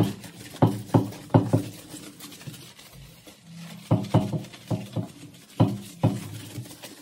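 An irregular series of short knocks and clatters, about a dozen, some in quick groups of two or three, from household objects being handled.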